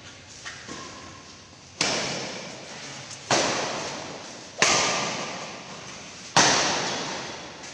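Badminton rackets striking a shuttlecock in a fast rally: four sharp smacks about one and a half seconds apart, each ringing out in a long echo of the hall.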